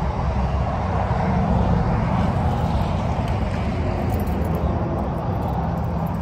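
A car going by on the road with a steady low rumble of engine and tyres, loudest a couple of seconds in.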